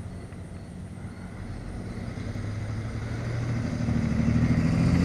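A motor vehicle's engine approaching, growing steadily louder, with its engine note strengthening in the second half.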